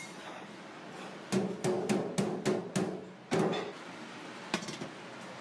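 A quick run of about seven knocks on a stainless steel stockpot, roughly three a second, each ringing briefly, as the basket is knocked against the pot to empty it. A single light click follows near the end.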